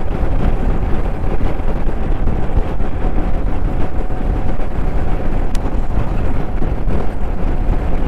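Motorcycle ridden at a steady road speed: wind rushing over the microphone, with a steady engine note underneath.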